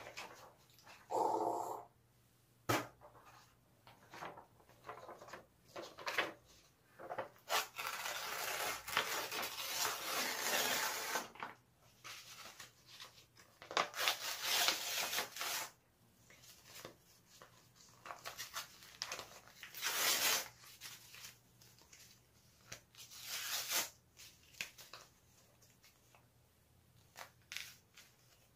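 A sheet of paper being folded and crumpled by hand: irregular bursts of crinkling and rustling, the longest about eight to eleven seconds in, with quieter handling between.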